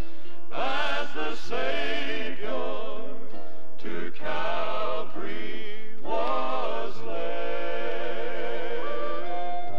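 Gospel male vocal quartet singing in harmony, voices held with vibrato over phrases that break every second or so.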